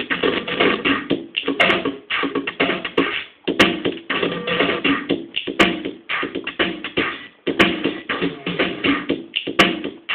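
AKAI XR10 drum machine playing a fast drum pattern that repeats about every two seconds, its drum samples being circuit-bent as fingers bridge points on the board around the sound EPROMs.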